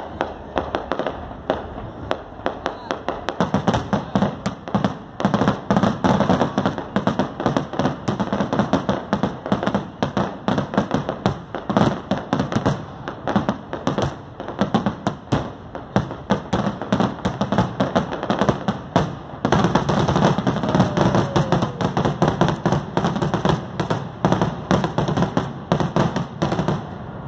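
Aerial fireworks display: rapid, continuous bangs and crackling, many reports a second, growing deeper and fuller from about three seconds in and again after about nineteen seconds.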